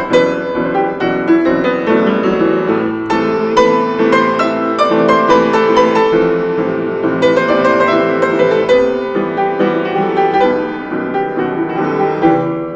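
Instrumental passage of a song with no singing: a piano plays a steady stream of struck notes and chords.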